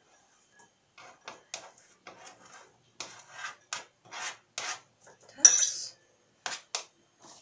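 A knife scraping chopped onion off a cutting board into a small glass bowl, then a fork scraping and tapping against the glass: a run of short scrapes and light knocks, the loudest about five and a half seconds in.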